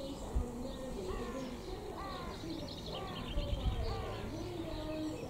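Several birds calling: low, wavering notes with higher notes that rise and fall about once a second, and faint high chirps above them.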